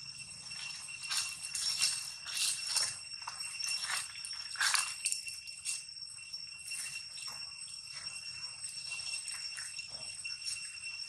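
A steady high-pitched insect drone, with short crackling rustles in dry leaves as the macaques shift about, most of them in the first half.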